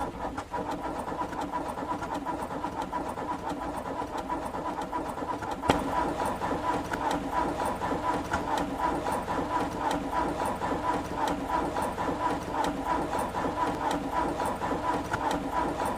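Car engine being cranked by its starter without catching: an even, rhythmic churning that goes on and on, with a sharp click about six seconds in, after which it is a little louder. The engine will not fire, which the owner puts down to spark plugs wet from rain and a weakening battery.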